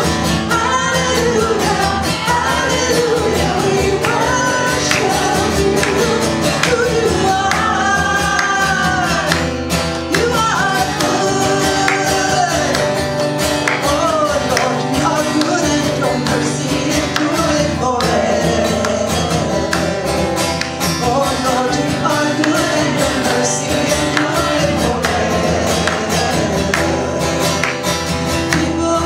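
A woman singing a worship song while strumming an acoustic guitar in a steady rhythm.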